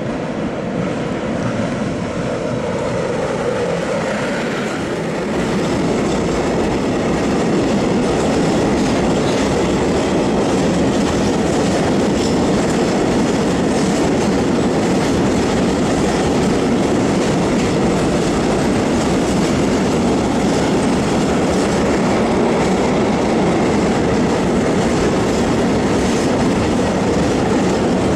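E6ACTd (Newag Dragon) electric freight locomotive passing at speed, with a tone that falls in pitch as it goes by in the first few seconds, then a long string of loaded open coal wagons rolling past. The wagons' wheels on the rails make a steady, loud rumble that builds over the first six seconds and then holds.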